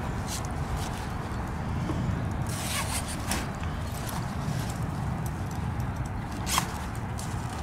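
Nylon carp weigh sling being handled and fastened: fabric rustling with a few short zip-like rasps, the sharpest near the end, over a steady low rumble.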